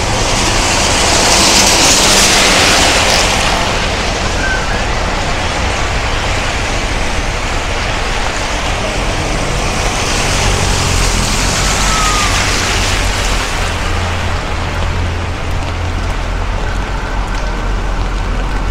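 Rush-hour road traffic on a wet street in the rain: a steady low engine rumble under a constant hiss of tyres on wet road. The hiss swells as vehicles pass close, about a second in and again around ten seconds in.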